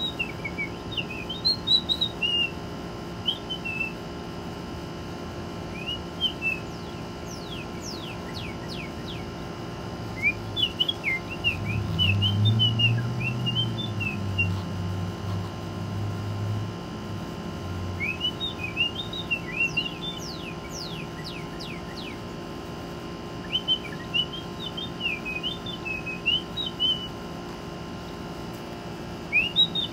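Whistled bird-like calls: bursts of short chirping notes, and twice a fast run of steeply sliding notes, from a northern cardinal singing and a person whistling to it. A low hum swells and fades in the middle.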